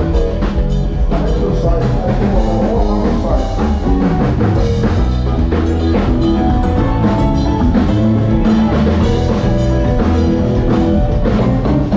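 A band playing, with a drum kit keeping a steady beat under keyboard and guitar.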